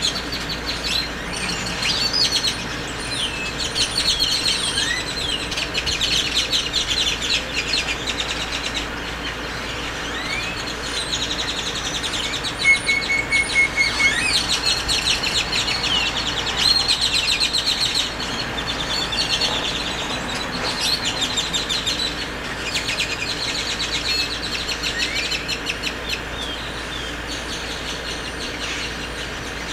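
Many birds chirping and calling at once, a dense run of short, overlapping high calls with an occasional short rising whistle.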